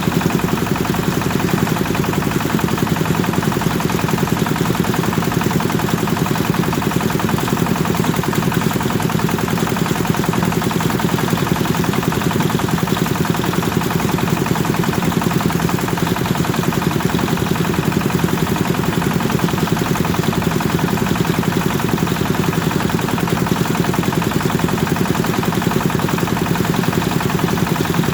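Kubota engine running a rice thresher at a steady speed, with a rapid, even chugging that does not change.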